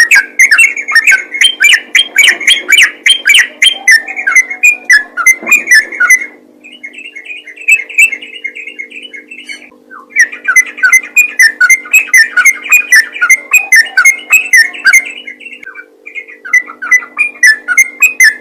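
Sooty-headed bulbul singing in long runs of rapid, chattering notes, with a softer stretch about six seconds in and a brief pause near the end.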